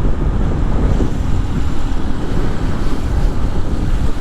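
Wind rushing over the microphone on a moving motorcycle, with the Honda Titan 150's single-cylinder engine running underneath.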